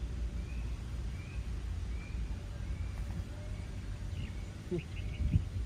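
Short, slightly rising chirps from a small animal, repeating about every half second over a steady low rumble. About four seconds in come a few quick clicks, then a sharp knock just after five seconds, the loudest thing here.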